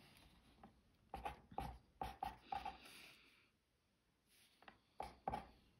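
Pen writing on paper: faint short scratching strokes, a cluster of four or five about a second in, then two more near the end.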